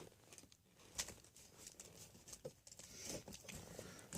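Near silence with a few faint, scattered taps and light handling noises.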